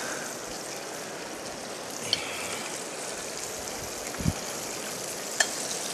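Raw lobster pieces searing in hot oil in a sauté pan: a steady sizzle, with a couple of light clicks and a dull knock about four seconds in.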